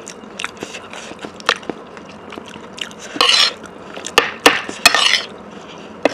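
Close-miked eating sounds: cutlery clicking against a plate several times, with two short noisy bursts of food being scooped or bitten, about three and five seconds in.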